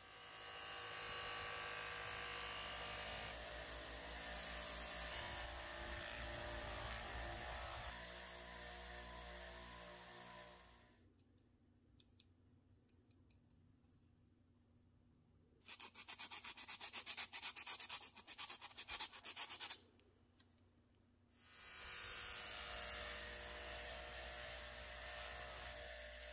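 Rubbing and polishing on the polished head of a 1961 MacGregor Tommy Armour AT2 8-iron. A steady rubbing sound runs for about ten seconds and then stops. After a quiet spell come about four seconds of rapid scrubbing strokes, and the steady rubbing returns near the end.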